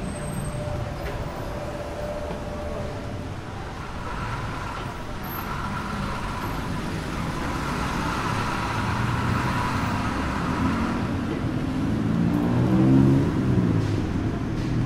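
Busy city street traffic, with a motor vehicle's engine passing close and loudest near the end.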